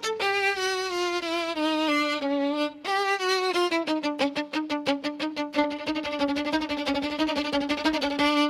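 Instrumental jazz music: a lead melody of long held notes with vibrato falls in pitch in two phrases, with a short break about a third of the way in, over a quick, steady rhythmic accompaniment.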